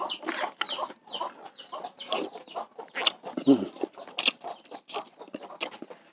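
Chickens clucking in short, irregular calls, over the slurping of noodles and the clicks of a spoon in a bowl.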